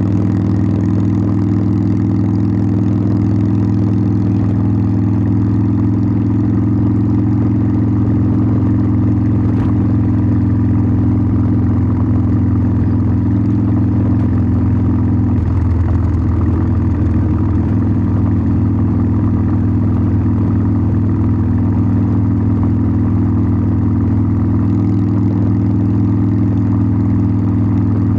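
Harley-Davidson Sportster 1200's air-cooled V-twin running at a steady engine speed, its exhaust note unchanging except for a brief change in tone about halfway through.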